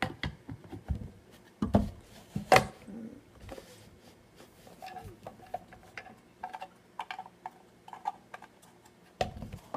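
Plastic fingerboard ramp pieces being handled, knocked together and set down on a wooden table: scattered clicks and taps, the loudest a few sharp knocks about two seconds in.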